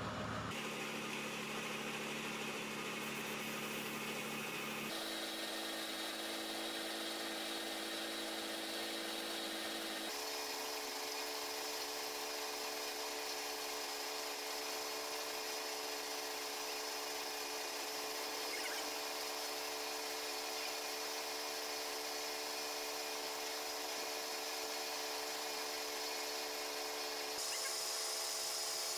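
Gravity-feed air spray gun hissing steadily as it sprays white paint onto a car body panel, with a steady machine hum beneath. The sound changes abruptly a few times.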